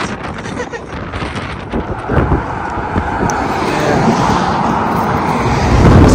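Wind buffeting the microphone, a loud gusty rumble that grows stronger toward the end.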